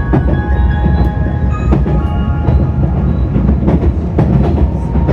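Cabin running noise of a JR West 273-series electric train: a steady rumble with wheels clicking over rail joints at irregular intervals. The last notes of the on-board chime fade out in the first couple of seconds.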